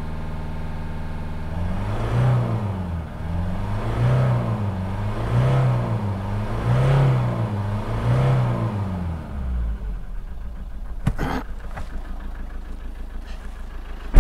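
Ford 2.2 TDCi four-cylinder diesel idling, then revved up and back down about five times in quick succession before settling to idle again. At idle it runs with an uneven gallop, as if missing a cylinder. A sharp click comes near the end, then a knock.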